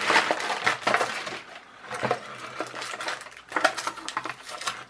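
Plastic carrier bag rustling and crinkling as things are pulled out of it, then scattered light clicks and knocks as a plastic toy car and its wired hand controller are set down on a table.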